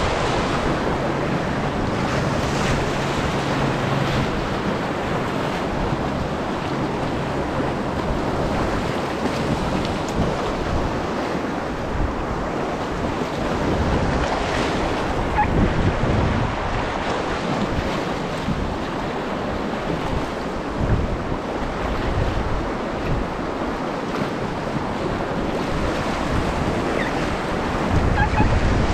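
Whitewater rapids rushing steadily, with wind buffeting the microphone.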